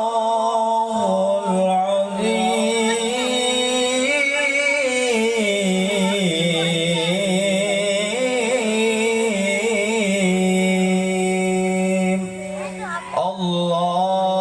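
A qori's solo voice in melodic Quranic-style chanting, holding long notes with wavering, ornamented turns. The voice breaks off briefly about twelve seconds in, then resumes.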